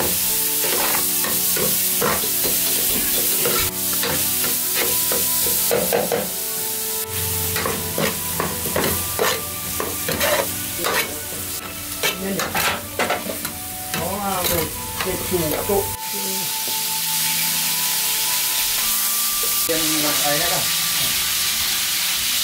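Chili-marinated snake meat stir-frying with lemongrass in hot oil: a steady sizzle, with the spatula scraping and clinking against the pan over and over as it is tossed.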